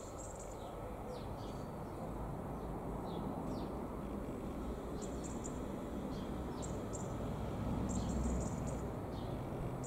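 Irish Rail Mark 4 intercity train with its 201 class diesel locomotive approaching, a low rumble slowly growing louder. Small birds chirp in short high bursts over it several times.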